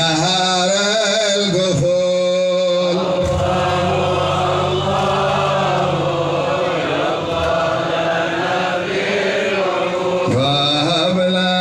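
Islamic devotional chanting: a sung melody with long held notes that waver in pitch, broken briefly about two seconds in, over a steady low note.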